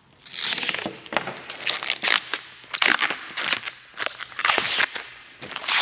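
Protective plastic film being handled and peeled off a transparent plastic panel, crinkling and crackling in a string of bursts.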